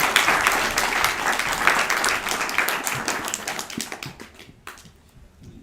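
Audience applauding, many hands clapping together. The applause is loud at first, then thins out and dies away about four to five seconds in, ending with a few scattered claps.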